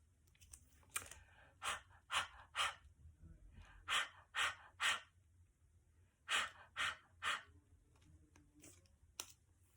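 A woman making short, breathy, unvoiced puffs of air with her mouth, in three sets of three, as a speech-sound practice drill.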